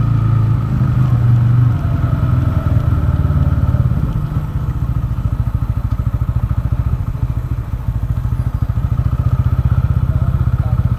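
TVS Ronin's single-cylinder engine running, at somewhat higher revs for the first couple of seconds, then settling to low revs with a rapid, even thumping rumble.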